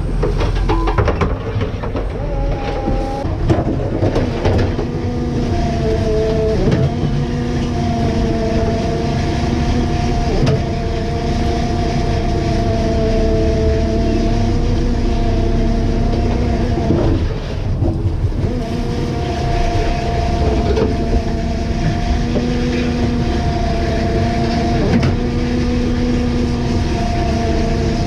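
A crab fishing boat's engine and deck machinery running steadily: a loud droning hum with whining tones that waver in pitch and briefly drop out a little past the middle. There are occasional knocks as crab pots are handled on deck.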